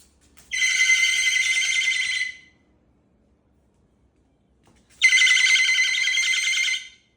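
Moluccan cockatoo giving two loud, long calls of about two seconds each, with a fast pulsing edge. These are contact calls after people who have just left.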